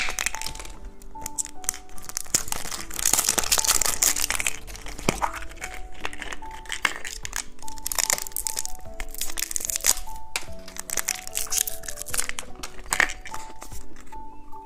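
Wrapper of a Kinder chocolate egg crinkling and tearing as it is unwrapped, with irregular rustles and small clicks. Light background music with short plucked notes plays throughout.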